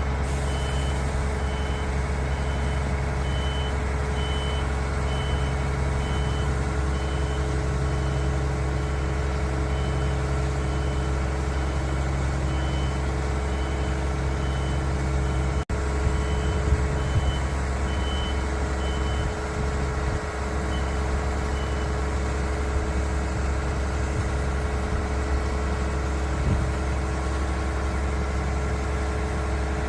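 Concrete pump truck's diesel engine running steadily, with a high warning beeper sounding a little more than once a second until about two-thirds of the way through, when it stops.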